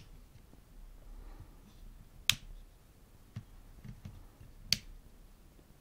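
The small switch of an LED work light fitted to a cordless drill being clicked off and on: two sharp clicks about two and a half seconds apart, with a few faint handling taps between.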